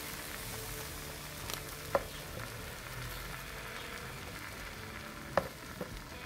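Chicken wings sizzling on a charcoal kettle grill as they are brushed with beer marinade, with two sharp clicks, about two seconds in and again near the end.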